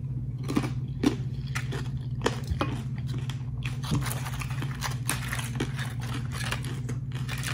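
A person chewing tortilla chips, a string of irregular crisp crunches, over a steady low hum.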